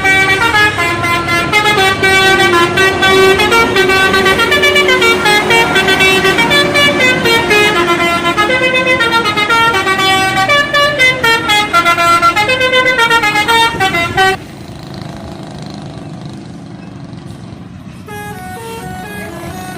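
Bus telolet horn, a set of air trumpets playing a loud stepped melody with several notes sounding together. It cuts off suddenly about fourteen seconds in, and a fainter telolet tune starts near the end.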